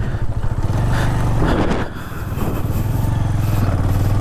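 Motorcycle engine running at low speed. It eases off about two seconds in and then picks up again.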